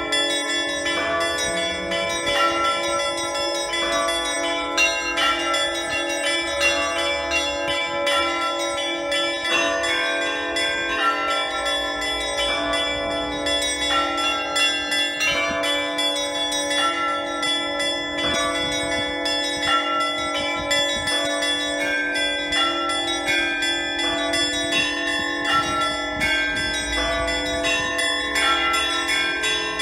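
Russian Orthodox church bells rung by a bell ringer in a continuous Easter peal. Quick, changing strikes on smaller bells ring over a steady lower bell tone, with no pause.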